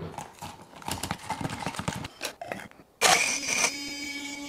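Clicking and rattling of ice in a BlendJet portable blender jar as the blade, stuck in frozen ice, is freed. About three seconds in, the BlendJet's motor starts with a loud burst of ice crushing, then runs steadily with a whine.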